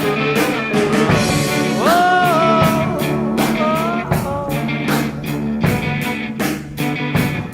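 Rock music with a steady beat; a lead line slides up in pitch about two seconds in and again near four seconds.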